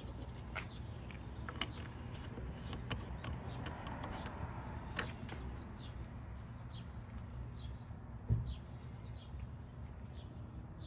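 Outdoor ambience: a steady low rumble with faint, scattered bird chirps, and a single soft thump about eight seconds in.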